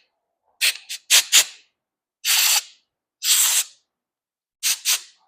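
Compressed air blowing through a Briggs & Stratton lawnmower carburetor in separate hissing blasts: four quick puffs, two longer blasts of about half a second in the middle, then two more quick puffs near the end. The air is drying the carburetor after the parts cleaner and clearing out any debris still inside it.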